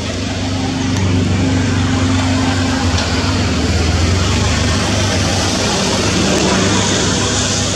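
An engine running steadily with a low hum over a broad rushing noise, swelling over the first second and then holding.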